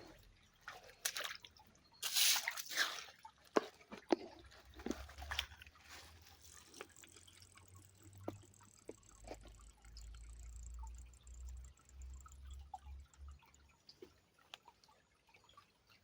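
Water splashing and dripping in small, irregular splashes, with a louder splash about two seconds in.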